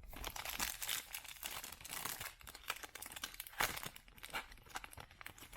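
Foil trading-card pack wrapper being torn open and crinkled, a dense run of sharp crackles with a louder snap about halfway through.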